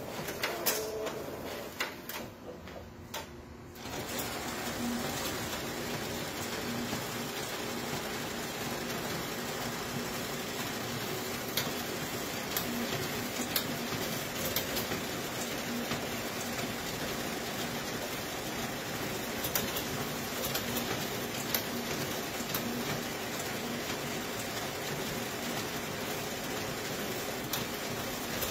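Konica Minolta bizhub 601 copier running a multi-set copy job. It starts quieter with a few clicks, then rises about four seconds in to a steady mechanical whir of paper feeding, with light clicks now and then as sheets pass into the finisher.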